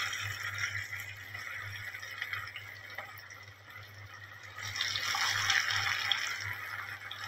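Breadcrumb-coated chicken pieces deep-frying in hot oil in an aluminium kadai: a steady sizzle that grows louder about five seconds in as another drumstick goes into the oil. A low steady hum runs underneath.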